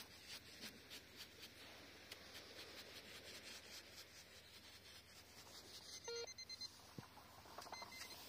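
Faint scraping and scooping of a small hand digging tool in damp beach sand, a stroke every half second or so. About six seconds in and again near the end come short electronic beeps from the metal-detecting gear, signalling metal in the hole.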